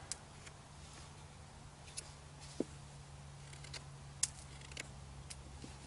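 Knife cutting a piece of green bush timber to square off its end: a few short, sharp snicks at uneven intervals, the loudest about four seconds in, over a steady low hum.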